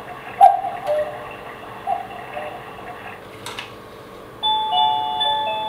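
Quartz Black Forest cuckoo clock striking the hour: the electronic two-note cuckoo call sounds about twice, each call followed by a fainter echo. The calls stop, a sharp click comes about three and a half seconds in, and then the clock's electronic hourly melody starts about a second later.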